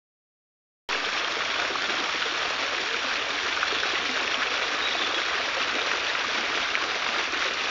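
Steady rush of running water that starts abruptly about a second in.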